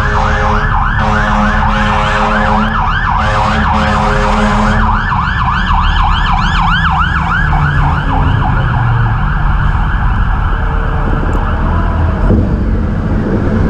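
Fire engine siren in a fast yelp, about three rising-and-falling sweeps a second, with a run of short horn blasts in the first five seconds; the siren fades out about twelve seconds in, over a steady low rumble.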